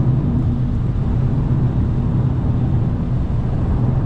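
Turbocharged car cruising on the highway, heard from inside the cabin: a steady low engine hum under even road and tyre noise.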